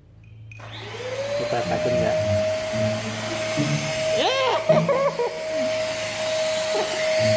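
Corded stick vacuum cleaner switched on about half a second in: its motor whine rises in pitch and settles into a steady hum with rushing air. A brief wavering cry comes about four seconds in, over background music.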